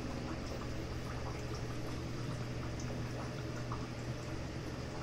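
Aquarium filtration running: water bubbling and trickling steadily, over a steady low hum.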